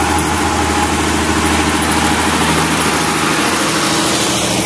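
A wheeled farm tractor's engine running steadily as the tractor, towing a trailer piled with hay, passes at close range.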